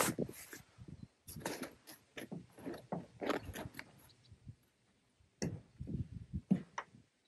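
Latch and hard-shell roof hardware of a Super Pacific Switchback X1 truck camper being worked by hand: irregular clicks, knocks and scrapes, with a pause of about a second midway.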